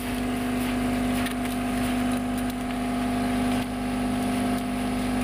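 An engine running steadily at one constant speed, an even drone with no change in pitch.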